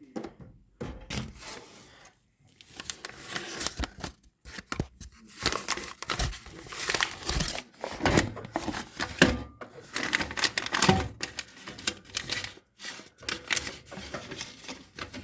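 Popcorn popping: a rapid, irregular run of sharp pops, busiest in the middle.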